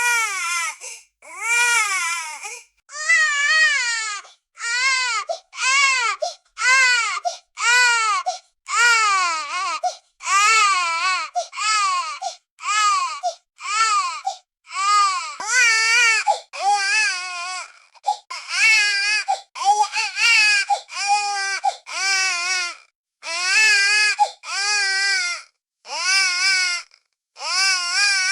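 Newborn baby crying: a long run of short, pitched wails, about one a second, each rising and falling in pitch, with brief breaths between them.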